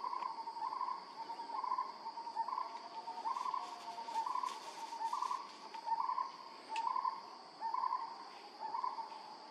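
A short two-step hooting call repeated about once a second, over a steady high insect buzz.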